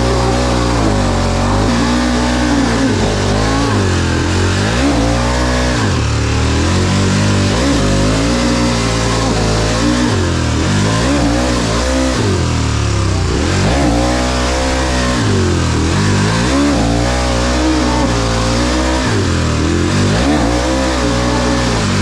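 Dirt bike engine revving hard under load, its pitch rising and falling again and again every second or two as the throttle is opened and closed.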